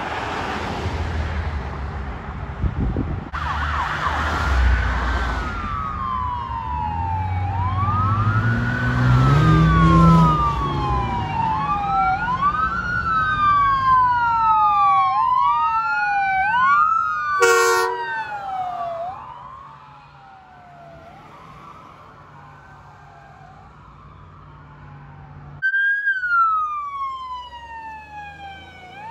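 Emergency vehicle siren in wail mode, each cycle rising fast and falling slowly about every two seconds, as an ambulance approaches; a vehicle's low engine rumble swells about ten seconds in, and a short horn blast cuts in a little past the middle. The siren fades lower, then near the end a police car's siren wails loud again.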